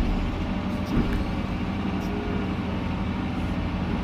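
Excavator diesel engine running steadily, with a couple of short knocks about a second apart near the start.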